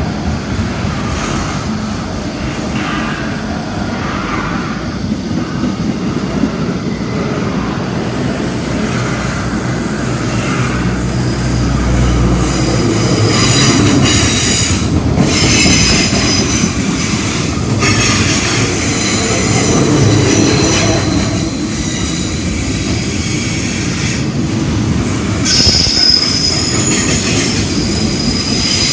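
Long freight train's wagons rolling past with a steady rumble and the clatter of wheels on the rails. High-pitched wheel squeal comes in about halfway through and again near the end.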